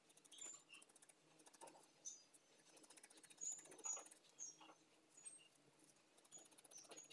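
Faint, rapid scratchy pokes of a felting needle stabbing into wool over a foam pad, with light rustling of the wool in the fingers.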